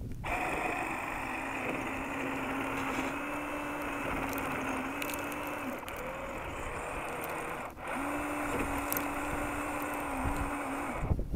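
Electric motor and gear drivetrain of an Axial SCX10 RC scale crawler whining steadily under load as it climbs a steep sand bank. The pitch shifts slightly with the throttle, and there is a brief break about two-thirds of the way in.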